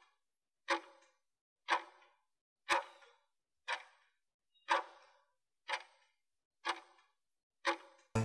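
Countdown-timer ticks like a clock, one sharp tick a second, eight in all. Loud music cuts in at the very end as the timer switches to the break.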